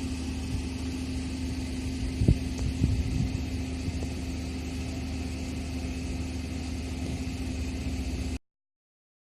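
A motor running steadily with a constant low hum, a few knocks about two to three seconds in, then cutting off suddenly near the end.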